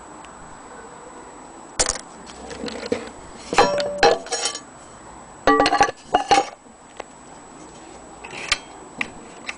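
Metal clinks and knocks with short ringing tones as an old gramophone motor's metal parts are handled, in two clusters near the middle and a few single clicks later.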